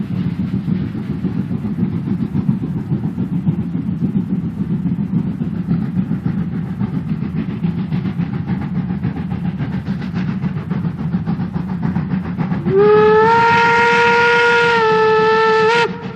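Steam locomotive hauling a train, its exhaust a steady rapid chuffing rumble. Near the end its steam whistle sounds for about three seconds, sliding up at the start, then holding one note before cutting off sharply.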